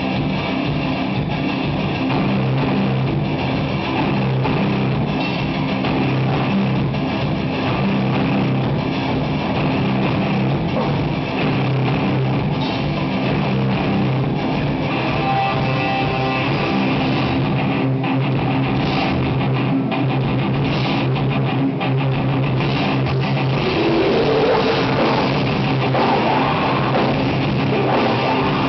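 Heavy metal band playing at a sound check: distorted electric guitars and a drum kit, loud and continuous, with a rising note about 24 seconds in.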